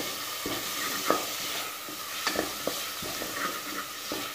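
Chopped vegetables and whole spices sizzling in hot oil in an open aluminium pressure cooker, stirred with a wooden spatula that scrapes and taps against the pot a few times over the steady frying hiss.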